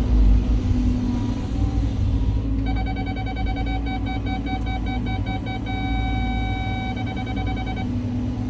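Cat 323 excavator's diesel engine running under load, with a steady low rumble. About a third of the way in, an electronic alarm starts beeping rapidly. It runs into one held tone, beeps again, and cuts off near the end.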